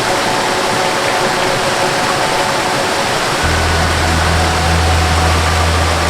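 Waterfall rushing steadily, overlaid with a soft melody of long held notes; a deep bass note comes in about halfway through.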